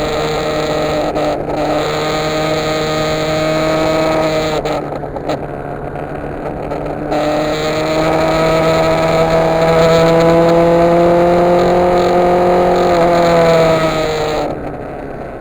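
Yamaha FZR motorcycle's inline-four engine running under way. The engine note eases off about four and a half seconds in, climbs steadily in pitch for several seconds, then drops away near the end as the throttle closes.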